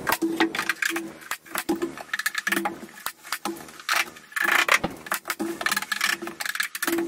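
Rapid clatter of knocks and clicks from hand tools and wooden stair spindles being handled and set in place.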